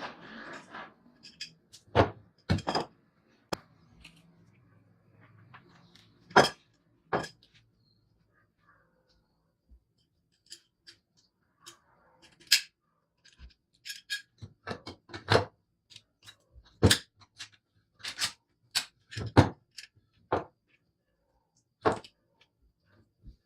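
Irregular sharp clicks and knocks of hard parts and tools being handled and set down, some singly and some in quick pairs, with a short rustle at the start.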